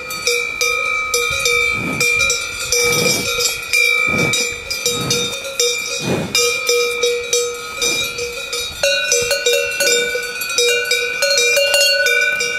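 A cow's large neck bell clanking irregularly as the cow moves its head and grazes, each clank renewing a ringing tone. A few short, low sounds come in the first half.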